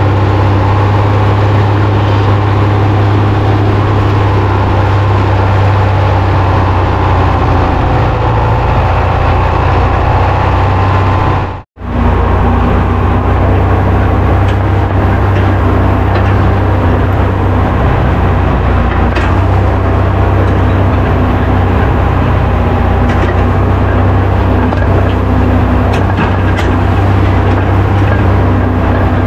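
Farm tractor engine running steadily under load while pulling a chisel plow through a field. The sound cuts out completely for a moment about twelve seconds in, then resumes.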